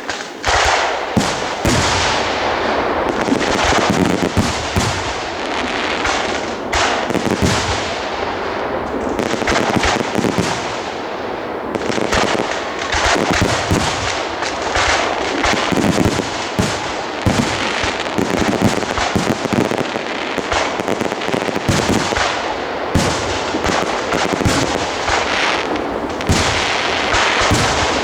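Fireworks finale: a dense, continuous barrage of shell bursts and crackling reports, bang after bang with hardly a gap, starting abruptly.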